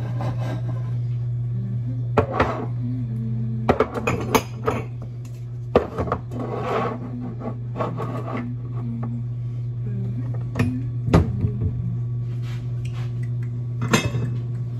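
Dishes and kitchenware clinking and knocking in irregular bursts as things are handled at a kitchen cupboard and counter, over background music and a steady low hum.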